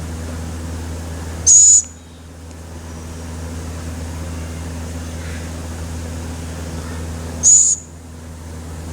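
Owlet giving two short, loud, high hissing screeches about six seconds apart, over a steady low hum.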